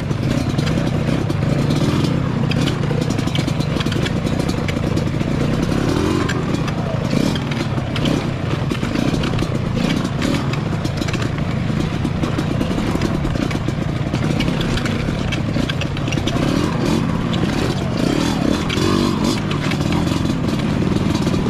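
Off-road motorcycle engine running at low speed, the revs rising and falling, with clattering and knocks as the bike rides over loose rocks.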